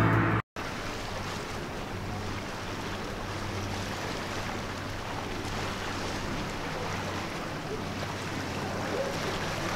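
Steady outdoor sea ambience: a wash of water and wind noise with a low, steady boat-engine hum underneath.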